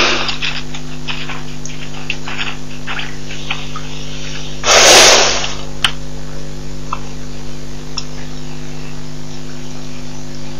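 Steady electrical mains hum and hiss from the waterhole camera's microphone, with one loud, breathy snort from a rhino about five seconds in.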